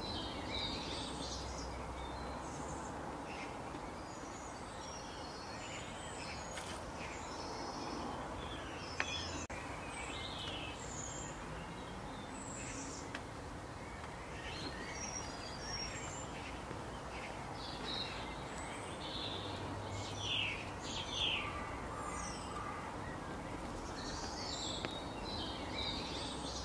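Small songbirds chirping and calling in many short phrases over a steady outdoor background hiss.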